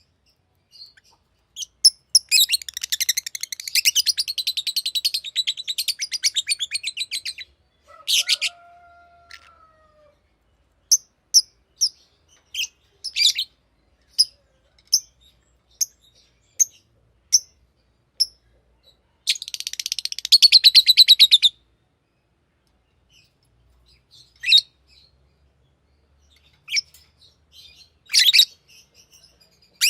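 Lovebird chirping: two bursts of rapid, high chattering, one about five seconds long and one about two seconds, with single sharp chirps about once a second between them and a few more near the end.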